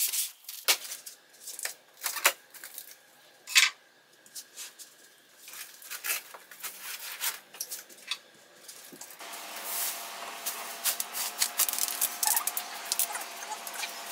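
Cardboard box and plastic wrapping being handled as a large mirror is unpacked: scattered knocks, scrapes and crinkles. About nine seconds in, a steadier background sound with faint tones comes in under the handling noises.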